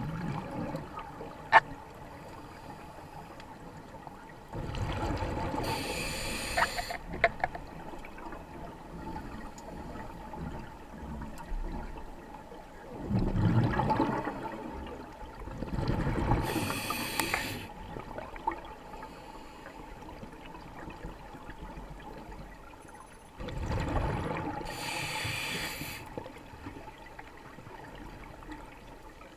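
Scuba diver breathing through a regulator underwater: three breaths about ten seconds apart, each a rumble of exhaled bubbles and a hiss of air through the regulator. A single sharp click about a second and a half in.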